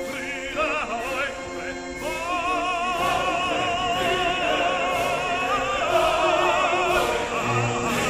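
Background music in an operatic style: a singer with wide vibrato over orchestral backing, moving into a long held note about two seconds in.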